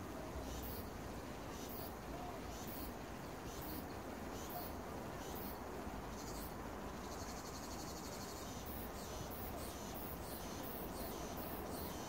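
Cicadas singing: high-pitched calls repeat about every two-thirds of a second, with one longer buzzing call a little past halfway and quicker calls near the end.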